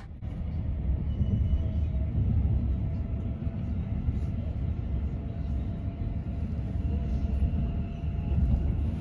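Steady low rumble of an SBB RE450 double-deck S-Bahn train running along the line, heard from inside the passenger coach.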